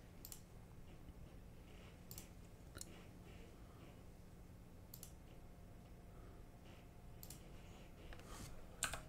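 Faint computer mouse clicks, about six spread irregularly a second or two apart, the loudest a quick pair near the end, over a low steady hum.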